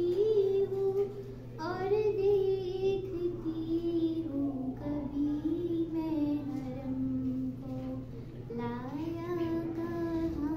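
A young girl's solo voice singing a slow melody in long held notes that glide up and down, with short breaths between phrases.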